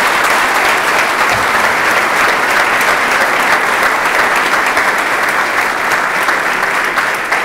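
Audience applauding steadily, a dense sustained clapping of a seated crowd, easing slightly near the end.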